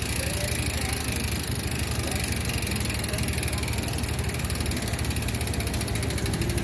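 Bicycle chain running through a handheld chain-cleaner tool as the cranks are turned, a steady whirring rattle with an even low pulse from the links passing.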